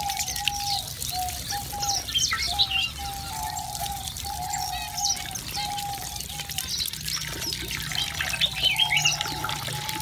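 A flock of aviary finches chirping and calling in many short, high notes, over water trickling into a shallow bird bath.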